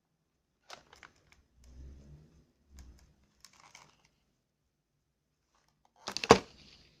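Packaging being handled and opened: soft crinkling and tearing of plastic and cardboard, then a short, loud clatter of sharp clicks and crackle about six seconds in.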